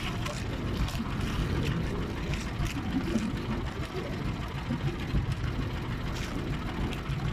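Wind and sea noise aboard a small outrigger boat on choppy water: a steady low rumble with small irregular splashes.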